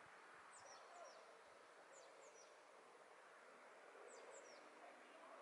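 Near-quiet outdoor hush with a few faint, short, high bird chirps that slide downward, mostly in pairs: about half a second in, around two seconds, and again around four seconds.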